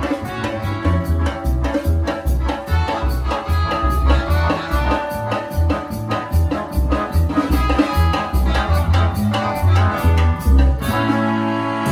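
Latin dance band music with a steady, pulsing bass and drum beat, ending on a held final chord near the end.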